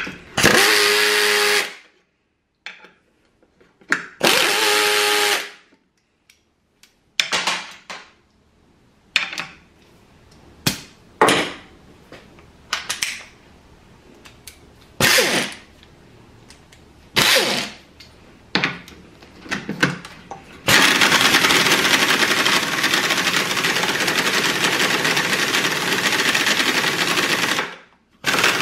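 Pneumatic 3/8-inch air ratchets driving lag bolts into a wooden board. There are two runs of about a second and a half near the start, then a string of short trigger blips, then one steady run of about seven seconds near the end.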